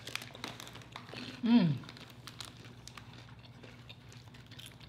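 Eating sounds of crisp tortilla-chip nachos: small crunches and clicks as the chips are bitten and handled. About a second and a half in, a short voice sound falls in pitch.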